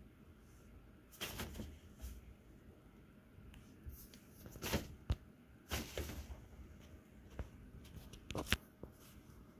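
Nylon pop-up cat tunnel rustling and crinkling in several short bursts as cats paw at it and shove it along the carpet, with a few light taps.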